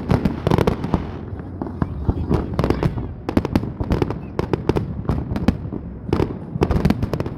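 Fireworks display going off: many sharp bangs and crackles in quick succession, coming in dense clusters.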